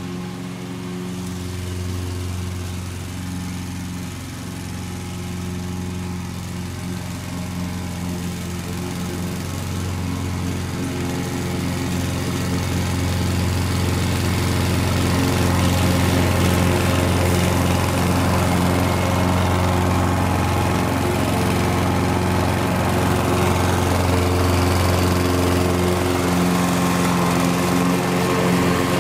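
Honda HR 214 lawn mower's GXV120 single-cylinder four-stroke engine running steadily while mowing grass. It grows louder as the mower comes closer.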